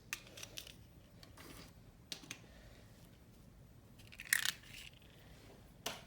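Beads and beading supplies being handled and moved about on a work surface: a few scattered light clicks and rattles, the loudest a little after four seconds.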